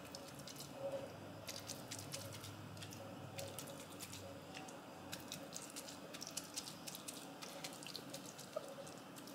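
Faint wet dabbing of a silicone pastry brush spreading oily marinade over a raw trout fillet, with soft irregular ticks as the brush touches the fish and the bowl.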